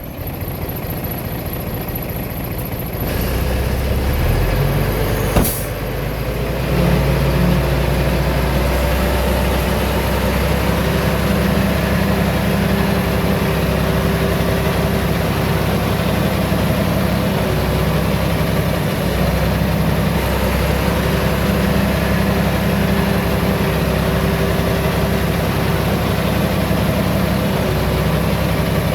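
Heavy diesel engine running steadily; it gets louder about three seconds in and again around seven seconds. A single sharp knock comes about five seconds in.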